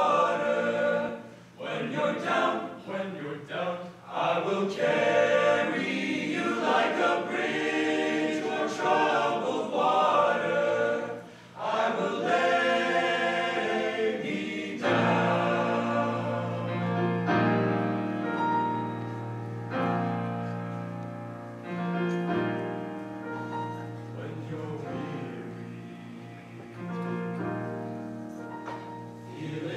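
A high school men's choir singing in parts. About halfway through, the voices settle into long held chords over a steady low bass line.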